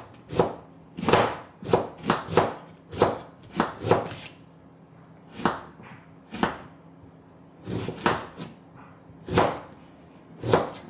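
Kitchen knife slicing fresh ginger on a cutting board, about fifteen separate sharp knocks of the blade on the board, quick and uneven for the first four seconds, then slower and spaced out.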